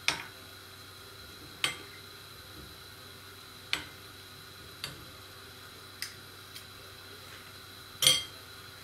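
A metal spoon clinking against a glass mixing bowl as zucchini fritter batter is stirred and scooped. There are about seven sharp, separate clinks a second or two apart, and the loudest comes near the end.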